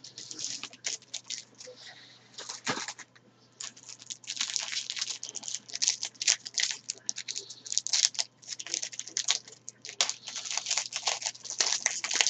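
Foil wrapper of a Topps Chrome trading-card pack being torn open and crinkled, with the cards rustling as they are handled: irregular crackling rustles with brief pauses.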